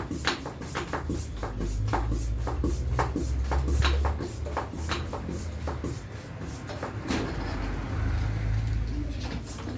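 Irregular light clicks and knocks from handling bicycle parts and tools during reassembly after a puncture repair, about one or two a second, over a steady low rumble.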